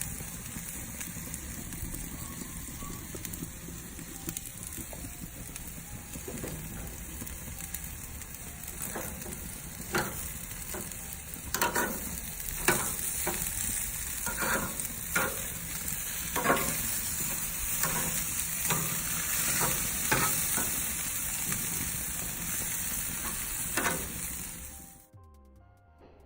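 StairMaster stair-climber running with a steady hiss, and footsteps in Nike Air Vapormax Plus shoes knocking on its revolving steps about once a second from around ten seconds in. Near the end the sound cuts off, leaving faint music.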